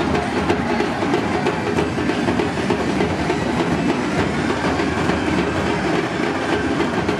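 Loud, unbroken din of a packed rally crowd mixed with rapid, continuous drumming, with no single voice standing out.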